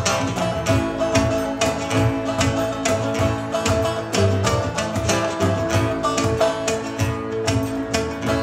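Acoustic band music: strummed and plucked strings over a steady percussive beat.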